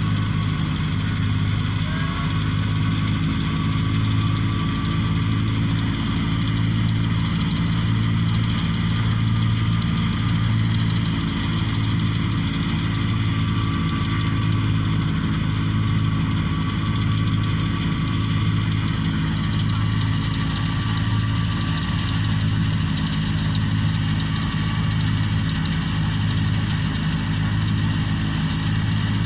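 An engine running steadily, with a low hum that swells and fades about once a second.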